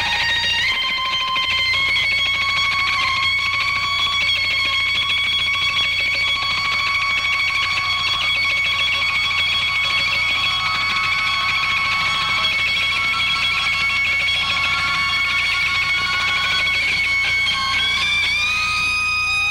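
Electric guitar solo holding one long sustained high note with vibrato. The note steps up in pitch about a second in and slides upward near the end.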